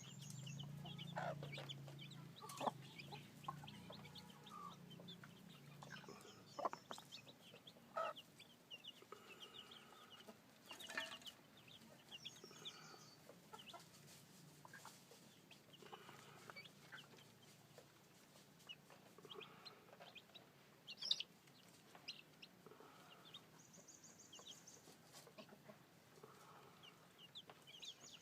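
Newly hatched chicks peeping softly throughout: many short, high chirps, mixed with occasional lower clucking calls and a few louder single calls.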